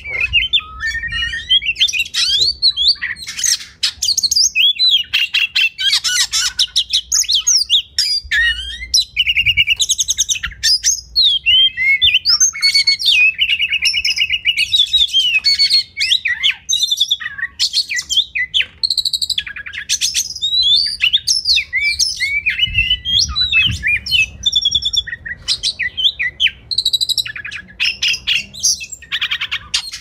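Oriental magpie-robin (kacer) singing a long, varied song of gliding whistles, trills and runs of fast, harsh repeated notes, with only short breaks, over a faint low hum.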